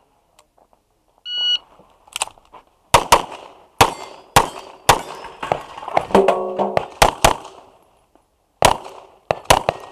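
An electronic shot-timer beep about a second in gives the start signal for an IPSC stage. A string of about a dozen pistol shots follows at a fast, uneven pace, with a pause of about a second near the end before more shots.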